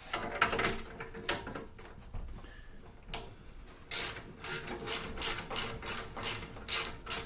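A bicycle bottom bracket cup is being turned into the frame's threaded shell with a bottom bracket tool. The first part is scattered handling knocks; from about four seconds in comes a steady run of metallic clicks, about three a second, as it is turned.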